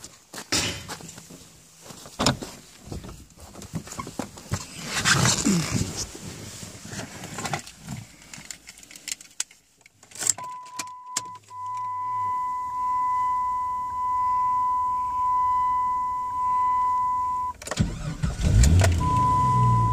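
Handling knocks and rustles as a car door is opened and someone gets in, then a warning chime beeping steadily about once a second. Near the end the Jeep Grand Cherokee's engine cranks briefly, catches and settles to idle while the chime carries on over it.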